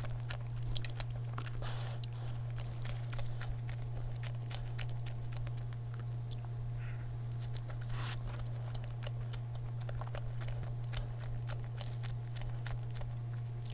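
Close-miked chewing of a soft cream-filled donut, with small wet mouth clicks scattered throughout. A steady low hum runs underneath.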